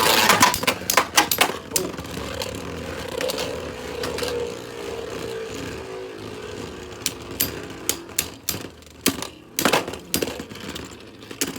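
Two Beyblade spinning tops, a 3D-printed Agèma Ares and a Guilty Longinus, battling in a stadium. It opens with rapid sharp clacks as they collide, then a whirring hum slowly drops in pitch as they spin down. Separate sharp clacks return in the second half as they knock together again.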